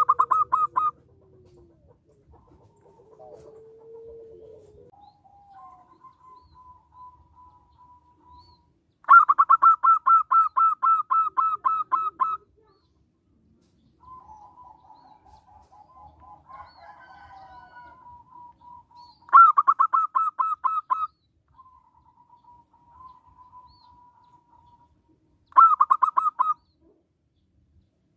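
Zebra dove (local perkutut) calling: four loud phrases of rapid, evenly pulsed coos, the longest about three seconds, with fainter trilling coos in the gaps between them.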